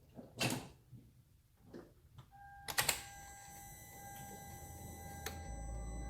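Hyundai Veloster being started after an ignition coil replacement: a sharp click, then a steady high-pitched electrical whine as the ignition comes on. Near the end a low steady engine hum sets in.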